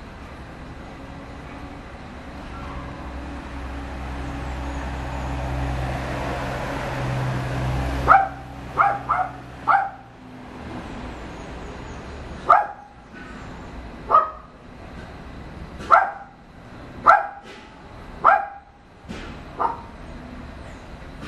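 A rumbling noise, like a passing vehicle, swells over the first eight seconds and stops. Then a dog barks about ten times: four quick barks, followed by single barks a second or two apart.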